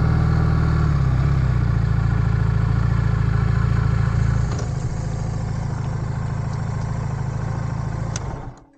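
Motorcycle engine running steadily while riding, then idling more quietly from about four and a half seconds in with the bike stopped, and cutting off sharply near the end.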